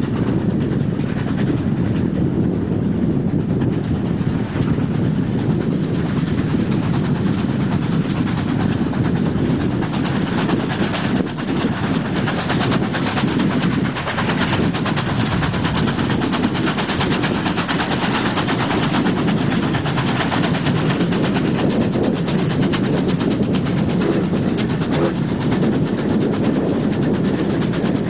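NSW 36-class steam locomotive 3642 running with a rapid, steady exhaust beat, heard from a car pacing alongside, mixed with the car's own road noise.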